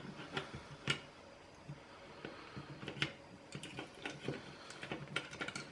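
Small plastic clicks and taps from the white plastic housing of an automatic soap dispenser being handled and fitted back together by hand. Two sharper clicks come about one and three seconds in, then a quick run of small ticks.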